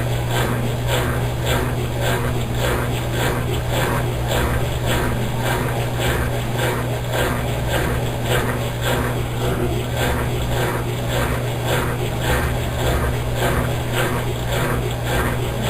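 Consul Maré Super 10 kg top-loading washing machine agitating a load of clothes in water: a steady motor hum under rhythmic swishing, about two swishes a second.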